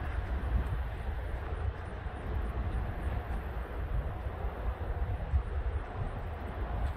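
Wind buffeting the microphone outdoors: a low, uneven rumble with no distinct event.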